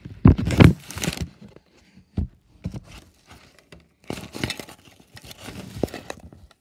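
Handling noise from a phone being picked up and moved: a hand and arm rubbing over the microphone make loud rustling, with a sharp knock about two seconds in.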